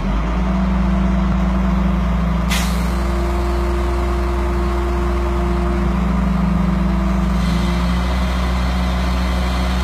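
Hydraulic truck-mounted crane's engine running steadily at raised revs with a held hydraulic hum, driving the boom as it swings and lowers the lifting bar. There is a short burst of hiss about two and a half seconds in.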